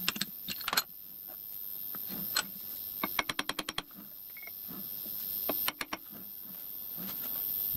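Metal clicks and clinks from a lathe's four-jaw chuck being adjusted with a chuck key and turned to centre a workpiece, with a quick run of about eight ticks near the middle. A steady hiss slowly grows louder underneath.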